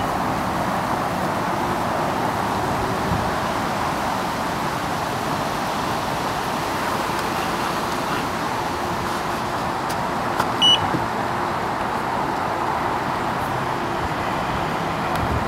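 Steady distant road-traffic noise, with one short high electronic beep from a carp bite alarm about two-thirds of the way through.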